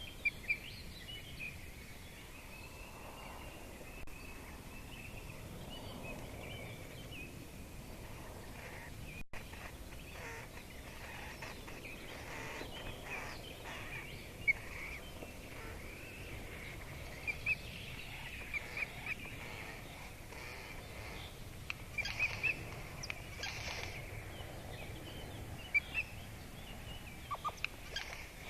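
Birds calling: a near-continuous run of short, high chirping notes, with a few sharp clicks here and there.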